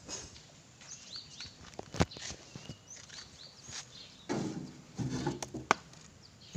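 Small birds chirping in the background, broken by a sharp knock about two seconds in and another a little before the end.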